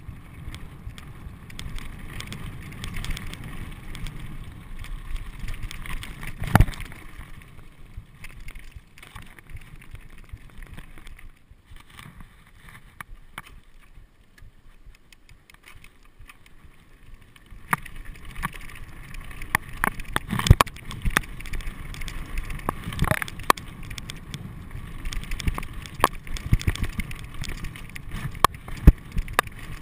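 Mountain bike riding over a rocky gravel trail: tyres crunching on gravel with wind on the GoPro's microphone, and sharp knocks and rattles as the bike hits rocks. It goes quieter for several seconds partway through as the bike slows, then gets louder with many knocks as the pace picks up.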